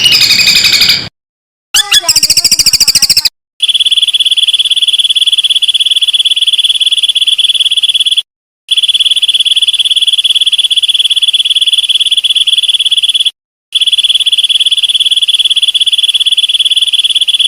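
A quick chattering bird call and a fast gliding trill in the first three seconds. Then a loud, high, rapidly pulsing insect trill, cricket-like and one steady pitch, runs in three long stretches with two brief gaps between them.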